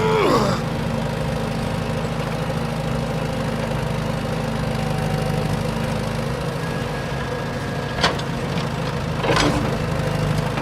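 A vehicle engine idling steadily as a low drone, with a short gliding sound right at the start and a sharp click about eight seconds in.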